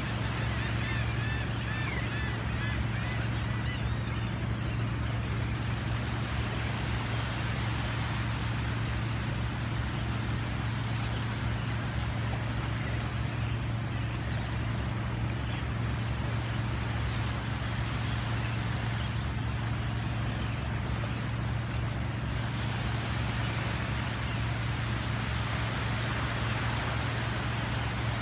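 Small waves washing ashore under a steady low motor hum, with a string of bird calls in the first few seconds.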